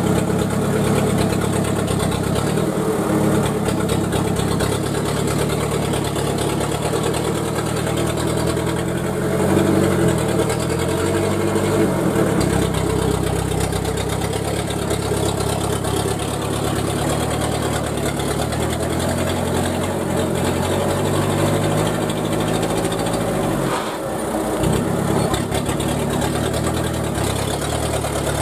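Small cab-over dump truck's engine labouring as the truck crawls through deep mud, its pitch rising and falling a third of the way in and dropping away briefly near the end.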